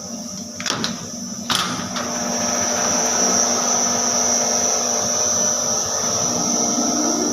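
Synthetic fake-down fibre shredding machine running with a steady motor hum and a high whine. A few knocks in the first second and a half, and it grows louder about two seconds in.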